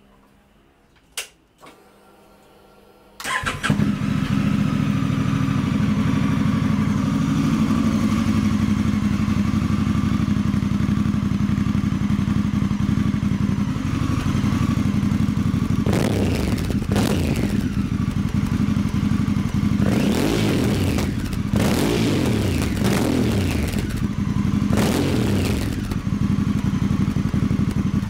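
Honda Africa Twin CRF1100's parallel-twin engine starting about three seconds in, through a Black Widow slip-on exhaust with the baffle removed, then idling and being revved several times in the second half. It sounds loud with the baffle out and stops abruptly at the end.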